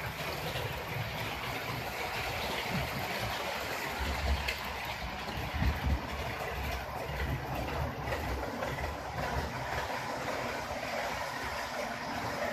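HO scale model trains running on track laid on table-top baseboards: a steady rolling and motor noise, with a few louder low knocks about four to six seconds in.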